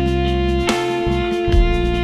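Instrumental music led by an electric guitar holding one long sustained note, with low bass notes changing underneath.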